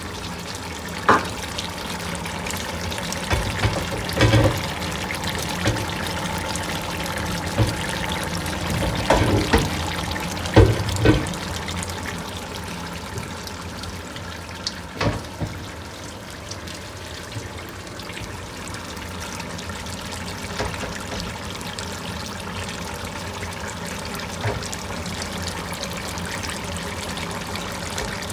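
Veal and wine bubbling steadily in a hot pot on high heat, with a few sharp knocks, as of a utensil, here and there.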